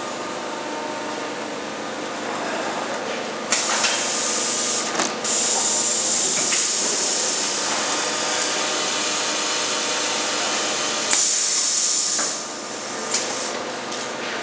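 Automatic ultrasonic plastic welding machine for car dashboard panels running: a steady machine hum, then a loud high hiss that starts suddenly about three and a half seconds in, breaks briefly, grows louder near the end and cuts off about two seconds before the end.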